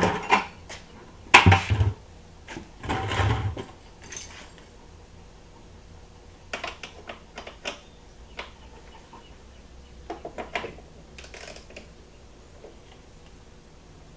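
Ratchet and bolts being worked by hand as bolts come off a dirt bike's plastic body panels. The sound is short bursts of clicking and metallic clatter, the heaviest with a dull knock in the first few seconds, then lighter clicking clusters at intervals.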